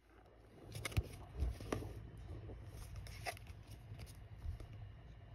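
Fingers handling a sleeved trading-card booster pack, its plastic wrapper and cardboard header crinkling, with a few sharp clicks: one about a second in, another just under two seconds in, and one past three seconds.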